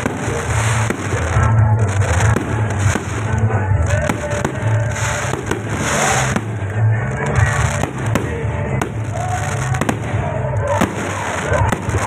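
Fireworks going off in a continuous string of sharp bangs, with music and voices underneath.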